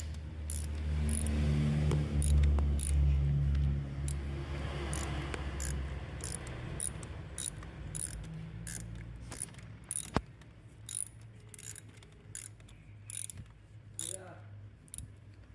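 Ratchet wrench with a 12 mm deep socket clicking in short, uneven strokes while a new glow plug is tightened into a Mitsubishi 4D56 diesel engine. A low hum runs under it for the first six seconds, and there is one sharp knock about ten seconds in.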